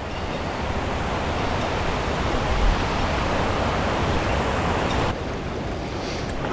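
A steady rushing hiss that builds over the first couple of seconds and drops off suddenly about five seconds in.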